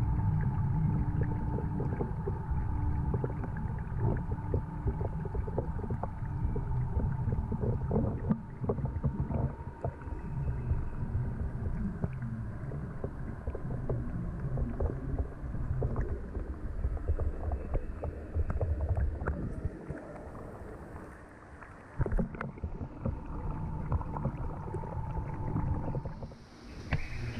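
Underwater sound muffled through a submerged camera housing in a large aquarium: a low rumble with a faint steady hum and scattered clicks and knocks, including one sharp knock about two-thirds through.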